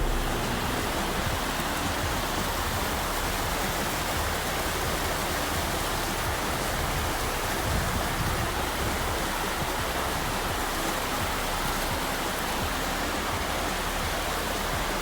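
A steady, even rushing noise that holds the same level throughout.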